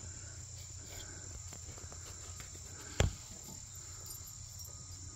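Steady high-pitched trilling of insects, with one sharp click about three seconds in.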